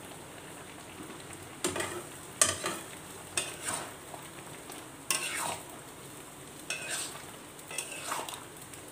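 Metal spatula scraping and stirring chicken pieces in thick sauce in a blackened metal kadai, about six irregular strokes over a steady low sizzle: the final stir of chilli chicken before it comes off the heat.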